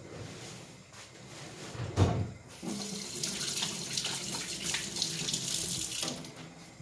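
A thump about two seconds in, then a tap running into a sink for about three and a half seconds before it is turned off.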